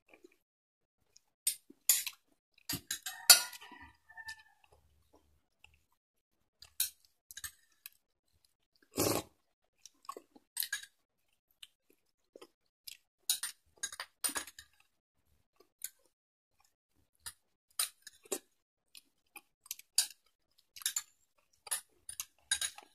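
A person eating from a small glass bowl with a metal spoon: chewing and mouth smacks mixed with sharp clinks of the spoon against the glass, in short, scattered clicks.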